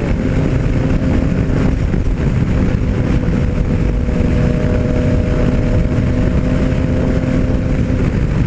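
Yamaha MT-09 Tracer's three-cylinder engine running at a steady highway cruise, a steady even engine tone under heavy wind rush.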